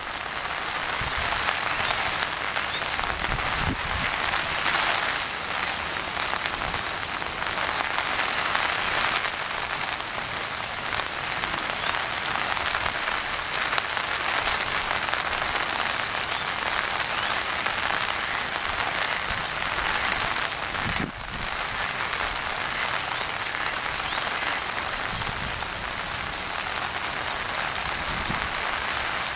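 Steady rain falling on a pond's surface, an even hiss of many drops striking the water, with one brief dip about two-thirds of the way through.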